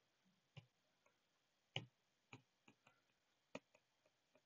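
Faint, irregular clicks and taps of a stylus tip on a tablet's glass screen during handwriting, over near silence.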